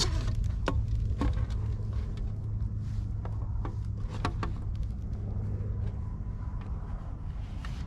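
Scattered clicks and knocks of a caught bass and gear being handled on a plastic kayak while the fish is measured, over a steady low rumble.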